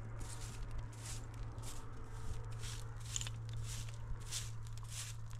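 Short straw bundle broom sweeping a dirt yard, a quick run of brushing swishes at about two strokes a second.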